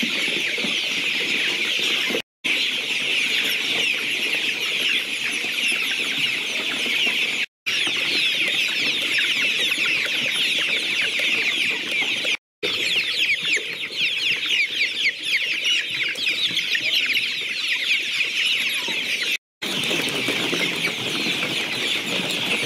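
A large flock of young chickens peeping and chirping in a dense, continuous chorus of high-pitched calls, cut by four brief moments of total silence.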